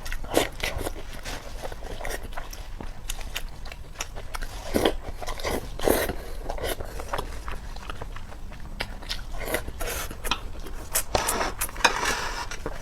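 A person biting and chewing food, with irregular crunchy mouth sounds and a few louder bites about five and six seconds in.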